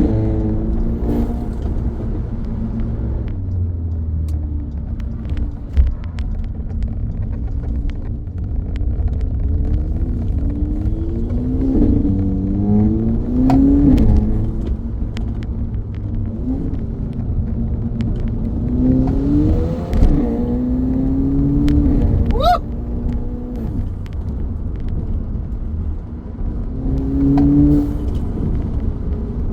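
Audi A3 1.8 TFSI turbocharged four-cylinder petrol engine with a cold air intake, accelerating hard: the engine note climbs and drops several times as it pulls and the revs fall away, with a brief rising whistle about two-thirds of the way in.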